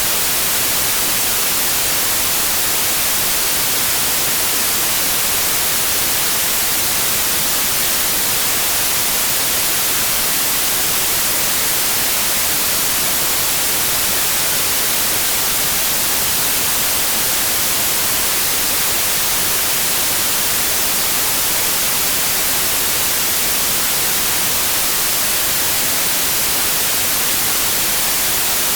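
Steady white noise: an even hiss, brightest in the treble, with no change in level.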